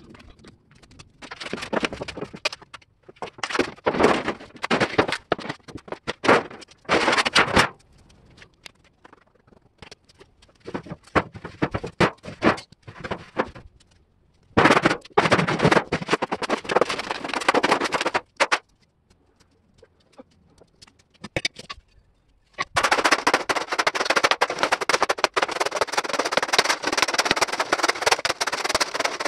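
Sheet steel from a cut-open steel oil drum clanging and banging in bursts as it is bent and flattened on a concrete floor. About two-thirds of the way in, a long-handled steel bar starts rapid, continuous scraping and chopping against the flattened sheet.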